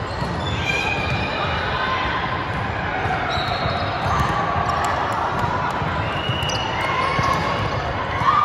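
Indoor volleyball rally: the ball being struck, sneakers squeaking on the hardwood court, and players calling out, in a reverberant gym.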